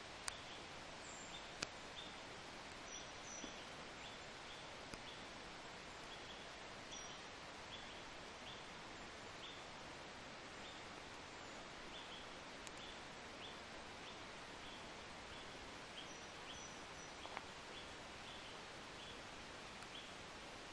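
Quiet woodland ambience: a faint steady hiss with a small bird repeating a short high note about every half second, a few higher chirps, and a couple of sharp clicks near the start.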